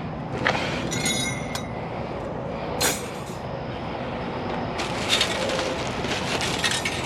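Loose metal scrap clinking and rattling as items spill out of a torn trash bag, with short ringing clinks about a second in, near three seconds and around five seconds, over a steady rumbling background.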